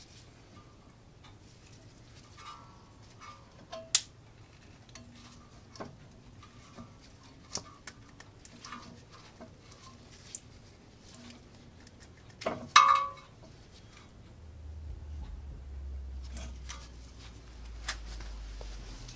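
Small metallic clicks and taps of a screwdriver prising at a brake caliper's pad wear-indicator plug, with two sharper clicks about four seconds in and just before thirteen seconds. A low rumble starts about three-quarters of the way through.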